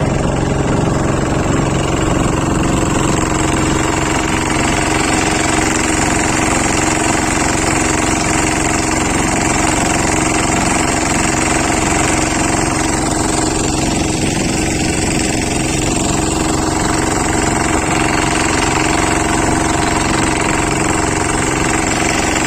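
An engine running loudly and steadily at a constant speed, with a fixed hum.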